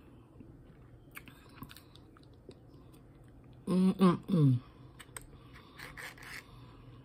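A person chewing a mouthful of rice with soft mouth clicks and smacks. About four seconds in comes a loud two-part hummed "mmm-mm" through closed lips, falling in pitch.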